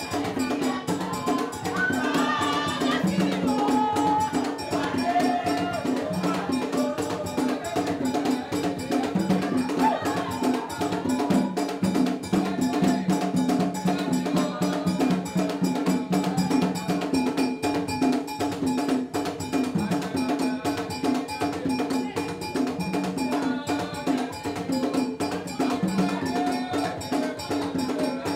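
Live Haitian Vodou ceremonial percussion: a fast, steady beat with a ringing, cowbell-like stroke, and voices singing over it in places.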